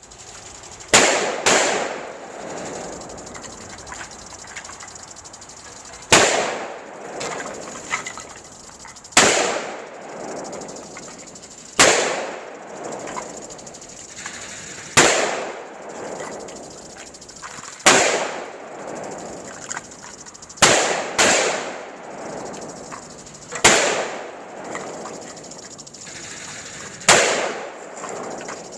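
AR-15 rifle firing about eleven single shots a few seconds apart, twice in quick pairs, each shot followed by an echo that dies away over about a second, with a steady hiss between shots.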